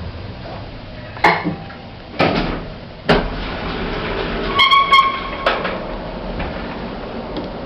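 KONE EcoDisc lift working: a series of clunks and knocks from the doors and car, a low steady hum setting in about three seconds in, and a short chime of a few beeping tones about five seconds in.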